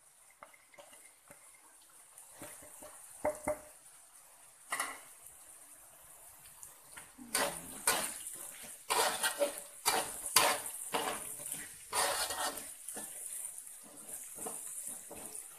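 A metal spatula scraping and knocking against a wok as sliced ginger, galangal and lemongrass fry in oil, with a steady sizzle behind. The first half holds only a few clicks; from about halfway the stirring strokes come thick and fast.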